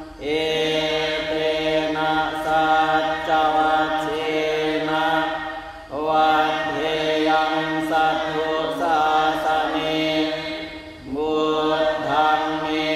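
Thai Buddhist monks and lay followers chanting Pali verses in the evening service. The recitation stays near one steady pitch in long phrases, broken by short breath pauses about six and eleven seconds in.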